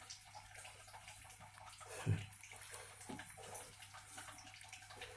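Faint small splashes and water sloshing as a young Asian water monitor moves about in a shallow plastic water tub, with a soft thump about two seconds in.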